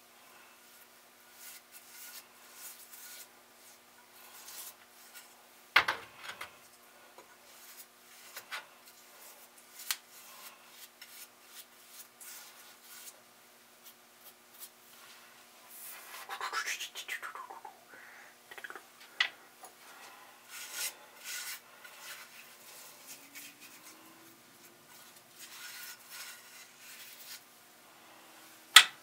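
Hand scrubbing and rubbing on small metal mower parts during rust removal, in short scattered strokes with a squeaky scrape about midway. Sharp knocks come about six seconds in and, loudest, just before the end.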